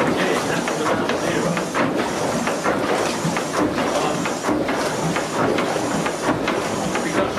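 Water churning and splashing in the open tank of a steam mill engine's condenser air pump as the pump discharges it, with mechanical clatter from the moving pump rods and linkage.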